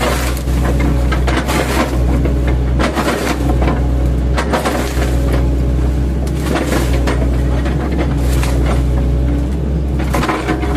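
Mini excavator's diesel engine running under load while its bucket, fitted with chipping blades, chops an oil palm trunk, with repeated cracking and splintering impacts every second or two.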